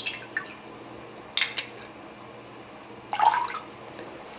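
A metal spoon tipping spoonfuls of liquid into water in a glass measuring jug: a few short splashes and drips, with light taps of the spoon.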